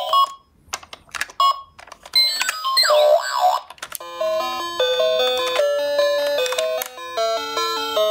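A few clicks, then a toy ambulance minicar's electronic siren wailing up and down for about two seconds, followed by a bright electronic jingle of stepping notes.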